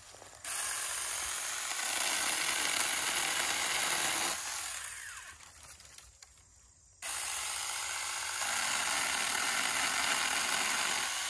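A 4-inch battery-powered mini chainsaw cutting up branches in two runs. It starts suddenly, runs for about four seconds and winds down, then starts again suddenly about seven seconds in and keeps cutting.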